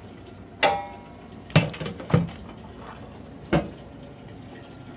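Sheet-metal inverter cover clanking as it is lifted off and laid aside: four knocks, the first with a short metallic ring, over a steady hiss.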